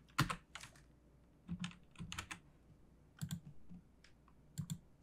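Computer keyboard being typed on, short keystrokes coming in irregular runs.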